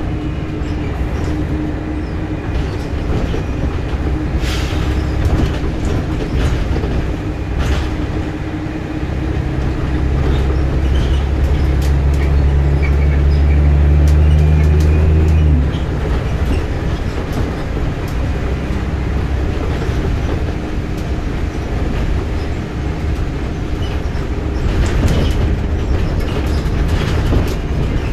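Scania bus on the move: steady engine and road noise with occasional sharp rattles. The low engine note builds and holds strongly from about nine seconds in, then drops away suddenly at about fifteen seconds.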